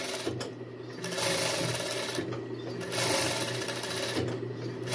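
Industrial sewing machine with a tape binder attachment stitching binding tape onto a swimsuit edge in three short runs of about a second each, stopping briefly between them. A steady low motor hum carries on through the pauses.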